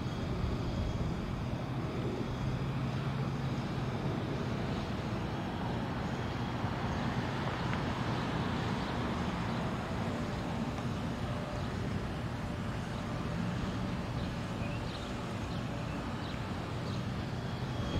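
Steady low rumble of distant motor traffic with an even hiss over it.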